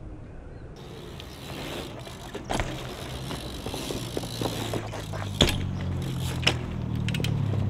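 BMX bike rolling over concrete skatepark ground, its tyre rumble growing as the rider comes close, with several sharp knocks, the loudest about five and a half seconds in.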